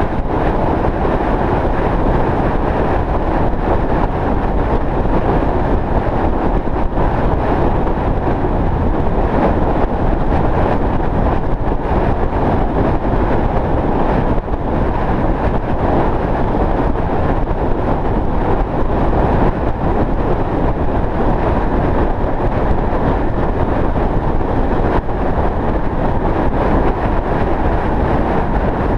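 Steady road and wind noise of a vehicle driving along a highway at speed, an even rush with no distinct events.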